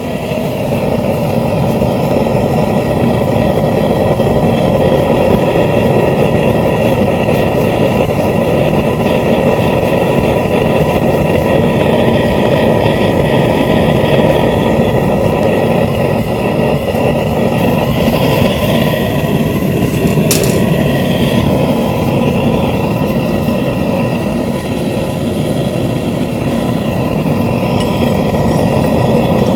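Propane forge burner running at about 5 psi: a loud, steady rushing noise of the gas-and-air flame, growing louder over the first second or two. A single short click about twenty seconds in.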